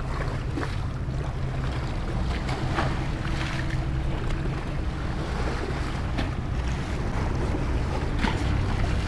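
Wind rumbling on the microphone over small waves lapping in shallow water, with a few faint splashes.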